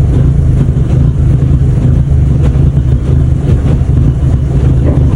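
MK5 VW Golf GTI's 2.0-litre turbocharged four-cylinder engine idling with a continuous low rumble, misfiring on cylinders 1 and 2 according to the diagnostic scan.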